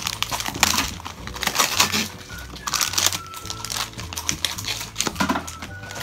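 Plastic toy packaging crinkling and rustling in repeated irregular handfuls as it is torn and rummaged through for small wrapped surprises.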